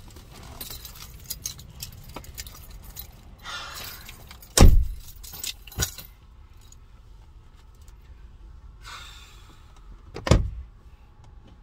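Small items jingling and rattling as they are handled inside a car, with two heavy bumps, one about five seconds in and one near the end.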